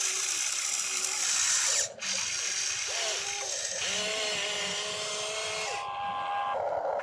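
Geared electric motors of a radio-controlled toy excavator whining as the boom, arm and bucket move. The pitch rises and falls as each motor speeds up and slows, over a steady buzzing grind of the gears.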